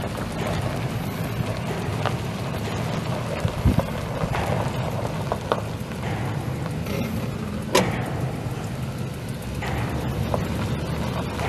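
A pickup's 5.7-litre V8 gas engine running at a steady idle, with a few clicks and knocks over it, the sharpest about a third and two thirds of the way through.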